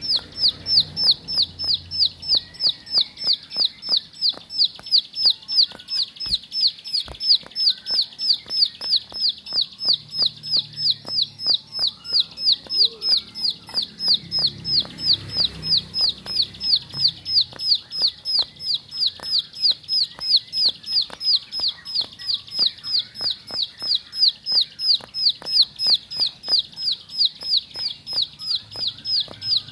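Plain prinia (ciblek sawah) giving its continuous rapid 'ngebren' call. A short, high, downward-sweeping note is repeated very evenly, about three times a second, without a break.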